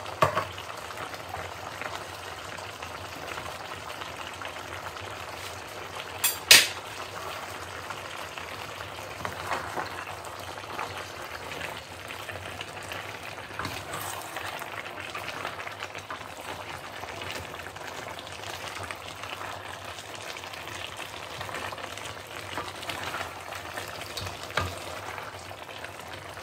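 Chicken and vegetables sizzling and simmering in a steel wok while a wooden spatula stirs them. A few sharp knocks of the spatula against the pan break the steady frying, the loudest about six seconds in.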